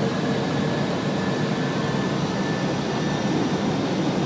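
Steady rushing noise inside an Airbus A321 cockpit in flight on approach: airflow over the airframe and the jet engines, with a faint steady high tone over it.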